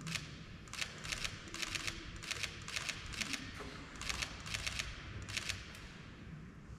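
Camera shutters firing in quick bursts of two or three clicks, again and again, stopping about five and a half seconds in.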